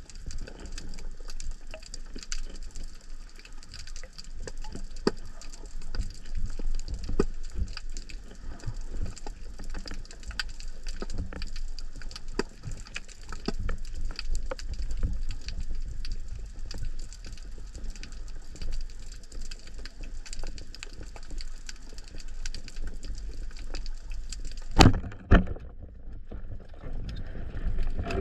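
Underwater ambience of steady fine crackling and popping over a low rumble. About 25 seconds in, a loud sharp snap as a band-powered speargun fires, followed half a second later by a second knock.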